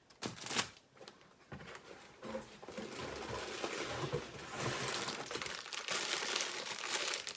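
Plastic LEGO parts bags crinkling and rustling as they are handled and lifted out of the box, with a few light clicks at first, then steady rustling from about a second and a half in.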